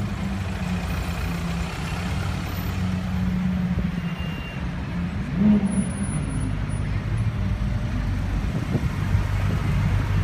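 Engines of slow-moving city traffic running close by in a steady low hum, as a Mercedes-Benz SLS AMG with its V8 creeps past. A brief louder surge comes about five and a half seconds in.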